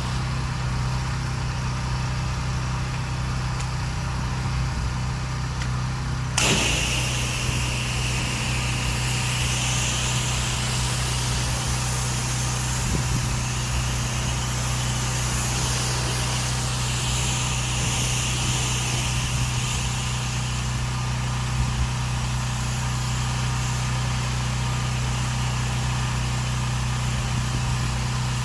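Pressure washer engine running steadily. About six seconds in, the spray opens and high-pressure water hisses out of an X-Jet nozzle, pre-wetting the house.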